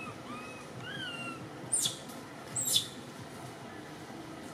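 Baby long-tailed macaque crying for its mother: three soft, arched coo calls in the first second and a half, then two louder, shrill, falling squeals.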